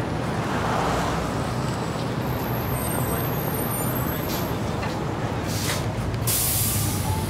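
Steady low rumble of heavy street traffic, with a heavy vehicle's air brakes hissing twice near the end, the second hiss lasting about a second.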